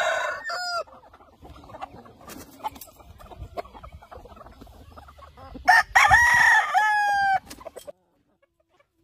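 Game-fowl chickens calling: short clucks and calls at the start, quieter clucking through the middle, then a rooster crows once, a long loud call beginning about six seconds in.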